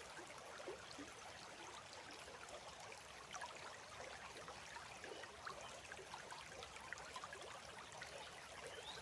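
Faint, steady rush of flowing stream water with small scattered splashes.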